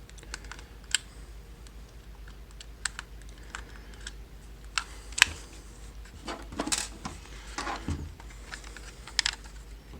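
Irregular light plastic clicks and scrapes from an Xbox One controller being handled with its back panel off, as the trigger is levered and slid back into its housing. The longer scraping sounds come about two thirds of the way through.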